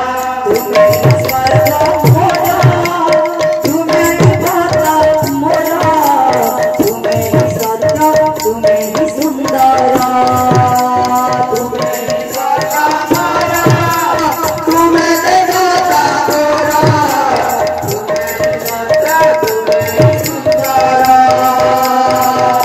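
Odia kirtan music: a man sings a devotional song over a steady held tone, with a large two-headed hand drum beating a quick rhythm and a metallic jingle.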